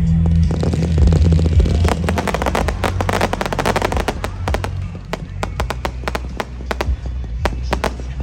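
Fireworks crackling and popping in rapid strings of sharp cracks, densest about two seconds in and thinning to scattered pops in the second half, over loud music with a heavy bass.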